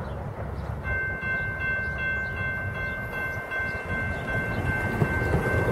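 Diesel locomotive's multi-chime air horn sounding a long, steady chord that begins about a second in, over the low rumble of the approaching train.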